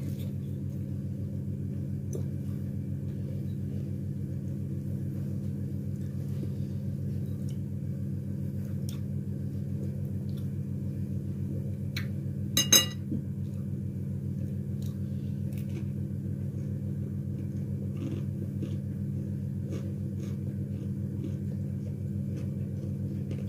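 Steady low mechanical hum in a small room, with one brief clatter about halfway through.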